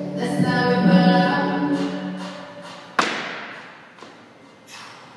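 Music with singing that fades away, then one sharp thud with a hall echo about three seconds in: a weightlifter's feet landing on the wooden platform as he drives the barbell overhead in the jerk.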